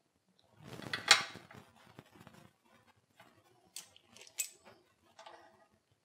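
Clatter and clicks of metal parts being handled: a homemade aluminium push-push latch moved about, with one sharp click about a second in, then three lighter clicks spaced over the following seconds.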